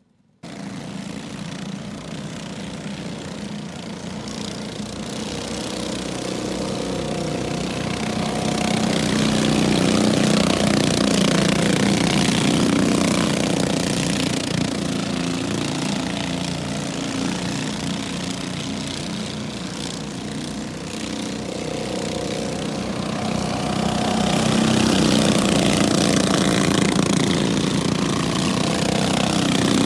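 Several junior sprint cars' small engines running as the cars lap a dirt oval, the sound swelling louder twice as they come by.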